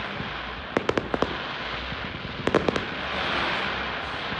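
Aerial fireworks bursting in a finale barrage: quick clusters of sharp cracks about a second in and again around two and a half seconds, over a steady background din of more distant bursts.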